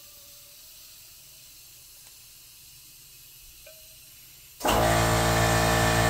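A quiet stretch of faint room tone, then about four and a half seconds in an electric air compressor starts up and runs with a loud, steady hum.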